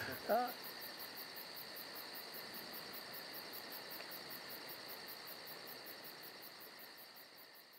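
Forest insects chirring: a high buzz pulsing about five times a second over a steady whine, fading out near the end. A brief laugh right at the start.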